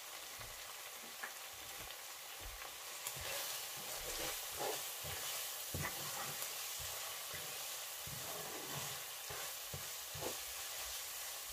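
Tomato-and-pepper stew base sizzling in a frying pan while a wooden spatula stirs and scrapes through it. The stirring gets busier about three seconds in.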